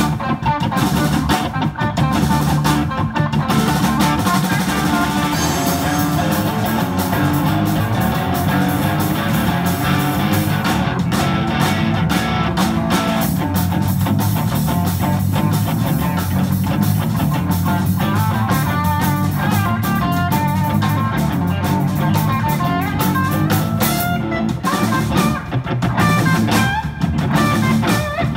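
Rock band playing live: guitar riffs over a driving drum kit.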